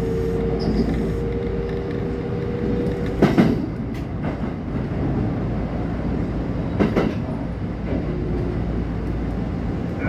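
Electric commuter train running along the track, heard from inside the driver's cab: a steady rumble with a held tone that stops about three seconds in, and two sharp clunks from the running gear about three and a half seconds apart.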